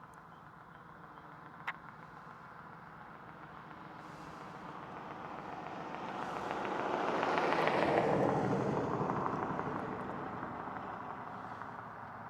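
A road vehicle passing by: a rushing tyre-and-engine noise that swells to its loudest about eight seconds in and then fades away. A single sharp click about a second and a half in.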